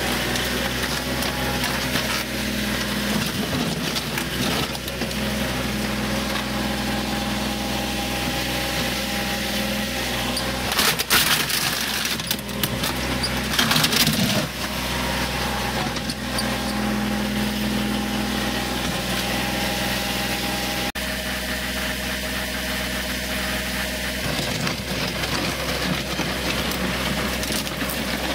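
Kubota tractor's diesel engine running steadily as its front-loader bucket presses down on plastic RC car bodies, with loud cracking crunches of the plastic shell about 11 and 14 seconds in.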